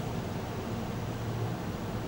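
Steady rumble and hiss of an outdoor model train ride recorded from on board: the small train running along its track, with no separate clicks or changes.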